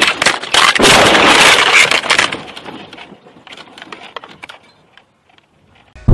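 Vehicle crash impact: loud crunching and cracking, with sharp clattering of breaking parts and debris. It dies away over the next few seconds to scattered ticks and near silence.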